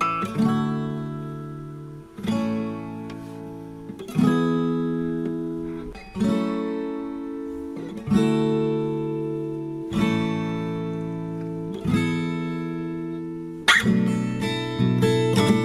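Background music: acoustic guitar chords strummed about every two seconds and left to ring out, turning to quicker, busier playing near the end.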